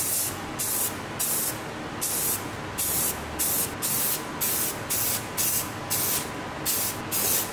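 Aerosol spray can of primer hissing in a quick series of short bursts, laying primer over body filler and bare metal.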